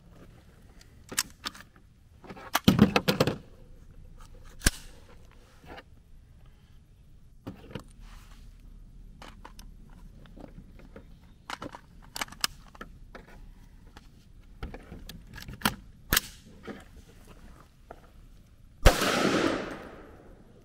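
Metallic clicks and clacks of a 300 Blackout AR-style rifle being worked by hand to clear a failure to feed, with the loudest rattle about three seconds in. Near the end a single rifle shot rings out, its echo dying away over about a second.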